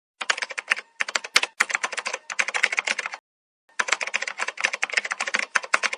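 Rapid typing on a computer keyboard: a fast, dense run of key clicks that stops for about half a second just after three seconds in, then resumes.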